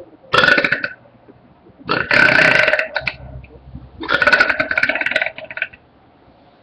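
A person belching three times: a short burp, then two longer, drawn-out ones.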